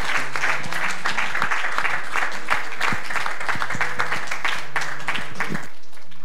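Congregation applauding, many hands clapping, dying away near the end.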